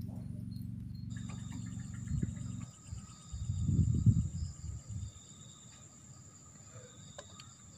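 Crickets chirping steadily at night, starting about a second in, over a low steady rumble that stops a little before the middle. Around the middle comes a louder low rush of liquid as coffee is poured from a stovetop moka pot into a steel cup.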